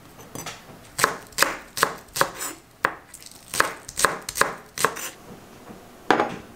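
Chef's knife chopping green onions on a wooden cutting board: a slow, even run of knocks, about two or three a second. Near the end, a single louder knock as a glass bowl is set down on the table.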